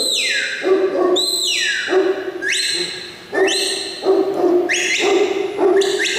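Huntaway dog barking repeatedly, about once a second: the loud working bark this New Zealand breed uses to drive sheep.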